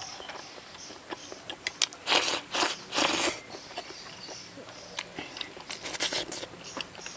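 A person eating soupy spicy hot pot with rice at close range: chewing, with three short, loud slurps about two to three seconds in and a few light clicks scattered through.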